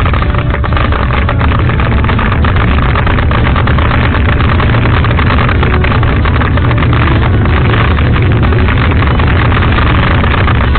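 Loud, steady wind rush and rumble on the microphone of a bicycle-mounted camera while riding, mixed with road noise.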